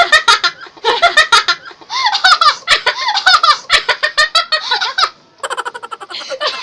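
Women laughing hard in rapid, high-pitched bursts, with squealing giggles.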